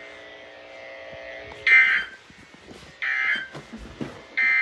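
NOAA Weather Radio SAME end-of-message signal: three short, harsh digital data bursts about a second apart, marking the end of the severe thunderstorm warning. It is played through a radio speaker.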